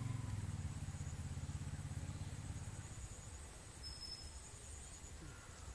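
Low rumble of a small engine running, fading away over the first three seconds.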